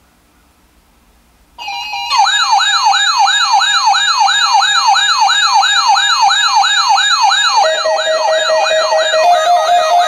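Several NOAA weather radio receivers sounding their alert alarms together for a Required Weekly Test. It starts suddenly about a second and a half in with steady beeping tones, then a loud rising siren warble repeating about three times a second. Another steady tone joins past the halfway mark.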